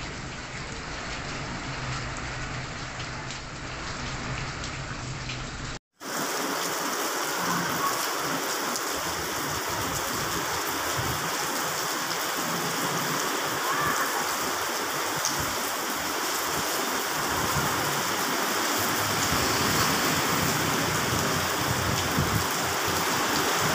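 Heavy rain falling as a steady hiss, with a short dropout about six seconds in where one recording cuts to another and the rain sounds louder and fuller.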